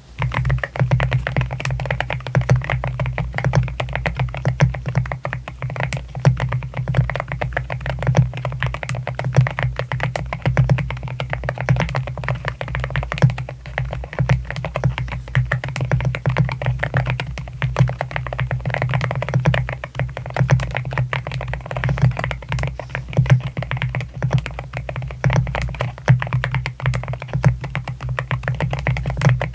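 Continuous fast typing on an AKKO MU01 keyboard with a wooden case and Rosewood linear switches: dense, rapid key strokes with no break.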